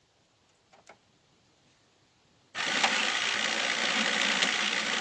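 Rebuilt Warn 2500 ATV winch's electric motor running when its leads are connected to the battery. It starts abruptly about two and a half seconds in and runs steadily, showing that the rebuilt motor works. A couple of faint clicks come before it.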